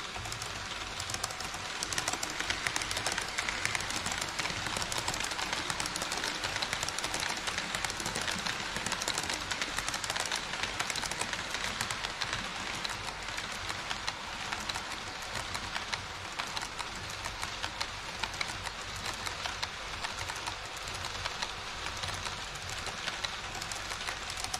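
HO-scale model train running on KATO Unitrack: the wheels of a long rake of Twilight Express passenger cars click rapidly over the rail joints in a steady clatter, which gets louder about a second in.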